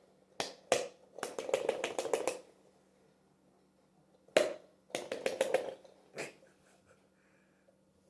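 Foam-bead-filled octopus stress ball being slapped and squished by hand, giving sharp snapping smacks in quick clusters with short pauses between.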